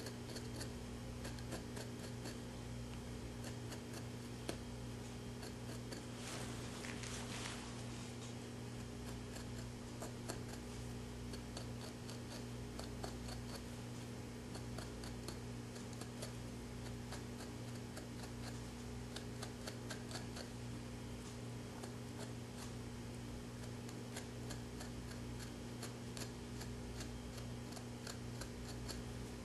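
Small irregular clicks and scrapes of a small knife blade working the skin of a mule deer cape, over a steady low electrical hum. A brief hiss comes about six to seven seconds in.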